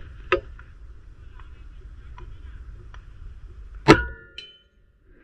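QS Air Arms MK3 BT air rifle firing a single slug: one sharp shot about four seconds in, followed by a brief ringing. A faint click comes shortly after the start, over a low steady background hiss.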